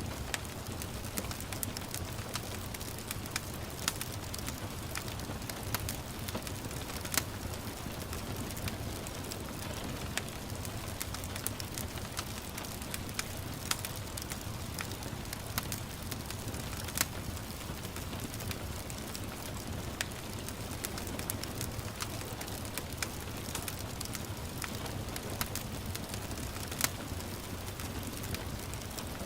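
Wood fire crackling, with irregular sharp pops scattered throughout, over a steady hiss of gentle rain and a low rumble.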